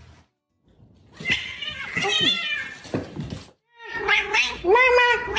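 A cat yowling in two long calls with wavering pitch.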